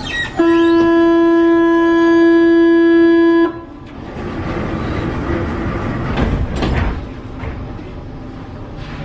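Paris Metro door-closing warning buzzer on an MF88 train, one loud steady tone held for about three seconds. It cuts off suddenly, and the train then pulls away with running noise building up.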